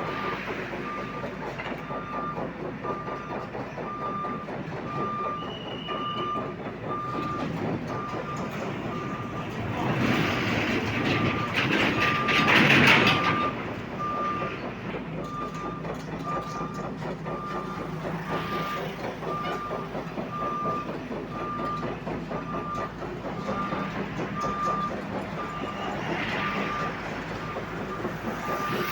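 Excavator's travel alarm beeping steadily, about one and a half single-tone beeps a second, over continuous engine and traffic noise. A louder rushing swell builds about ten seconds in and fades about three seconds later.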